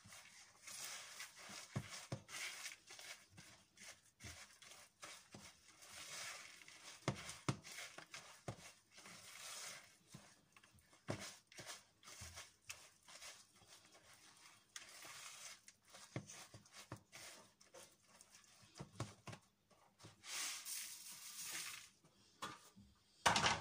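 Spatula stirring and scraping oat-filled cookie dough in a mixing bowl: irregular soft scrapes and small knocks, with a louder burst of noise near the end.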